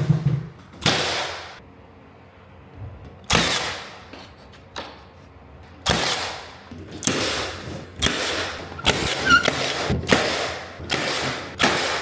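A series of about a dozen sharp bangs at irregular spacing, coming faster in the second half, as trim molding is nailed onto a staircase.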